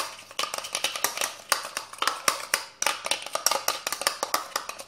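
A teaspoon stirring a thick mix of dish soap, liquid soap and powdered detergent in a small bowl, clicking and scraping against the bowl's side in quick, irregular taps. This is the mixing stage of borax-free homemade slime as it starts to thicken.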